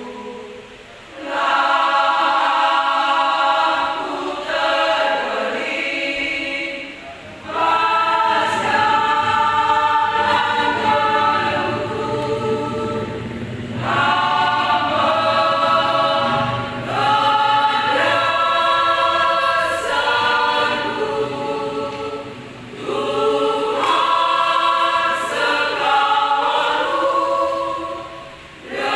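Women's church choir singing a Karo-language hymn in parts, phrase after phrase, with short breaks for breath between phrases.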